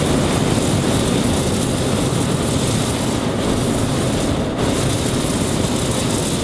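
Hot-air balloon's propane burner firing in one long, steady blast overhead.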